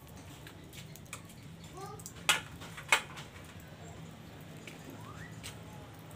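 Two sharp clicks about half a second apart over a steady low hum, with a few faint, short rising animal calls.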